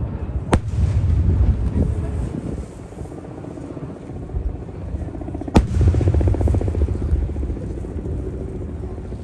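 Two aerial firework shells bursting about five seconds apart, each a sharp bang followed by a low rolling rumble that echoes for a couple of seconds.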